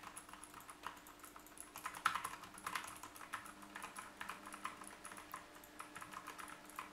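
Mechanical keyboard with clicky Outemu Blue switches being typed on: fast, irregular clicks. It is picked up faintly and unedited by a Soundtech ST-800 USB condenser microphone.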